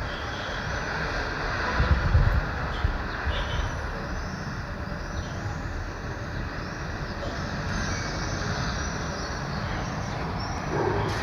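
Residential street ambience: a steady rumble of road traffic, swelling as a vehicle passes about two seconds in, with faint bird chirps high above.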